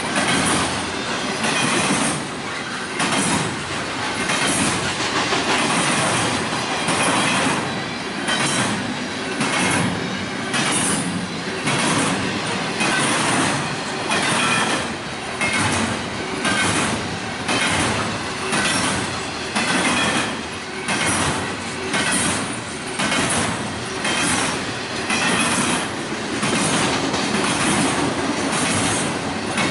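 A train's cars rolling past, their wheels clacking over the rail joints in a steady rhythm of about one beat a second.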